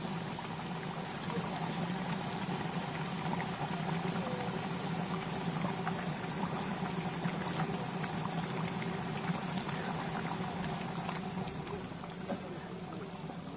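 Beef curry bubbling and sizzling as it simmers in a large pot, a steady hiss with many small pops.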